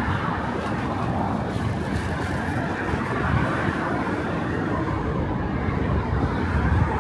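Steady road traffic: the continuous rush of cars and other vehicles passing along a city street.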